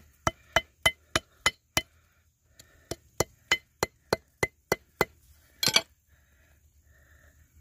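Hammer tapping a lump of quartz against a stone slab in sharp clinks, about three a second, crushing gold-bearing quartz to free the nugget inside. The taps pause briefly about two seconds in, and a louder final strike comes about three-quarters through.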